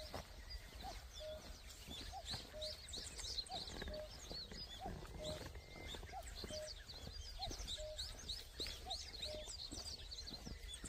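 Wild birds singing: many small birds chirping high and busily, over a lower two-note call repeated evenly about every second and a quarter. A steady low rumble lies underneath.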